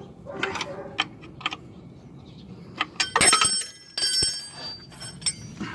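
Metal hand tools or parts clinking and clanking together. Light clicks come early, then a louder run of strikes about three seconds in, each leaving a bright metallic ring.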